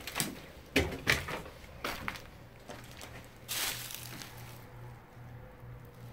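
Someone moving about in an old wooden house: a few sharp knocks and clicks in the first two seconds, then a short scraping rustle about three and a half seconds in, over a faint steady low hum.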